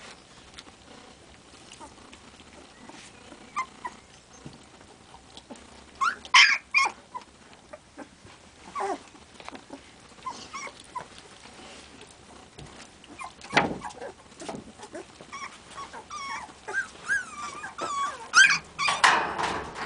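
Sixteen-day-old puppies whimpering and squealing in short, high, wavering calls. The calls are scattered at first and come thick and fast in the last few seconds.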